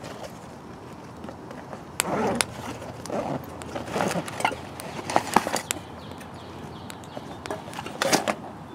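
Wood fire crackling in a small folding steel stove: sharp snaps and pops come at uneven intervals, with a few louder clusters of knocks about two, four and eight seconds in.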